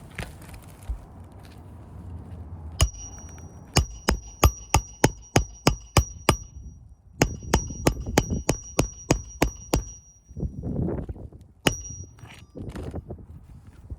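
Hammer driving roofing nails into asphalt shingles, steel striking steel with a high ring. One blow, then two quick runs of about ten blows each at roughly three to four a second, then a single last blow.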